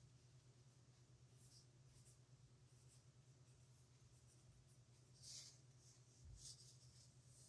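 Faint scratching of a nib pen on paper: a few short writing strokes, the loudest about five seconds in, over a low steady hum.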